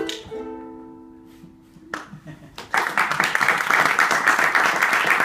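A final ukulele chord rings and fades away, then the audience breaks into applause about two and a half seconds in and keeps clapping; the applause is the loudest part.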